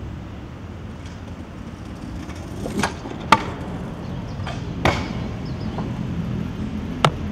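Stunt scooter riding: wheels rolling with a low rumble that builds, and four sharp clacks of the scooter hitting the ground, the loudest about three seconds in.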